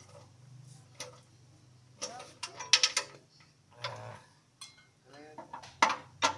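Irregular metallic clinks and knocks, with a quick cluster about three seconds in, from hand tools working on car steering and suspension parts. A low hum fades out early on, and faint voices talk in the background.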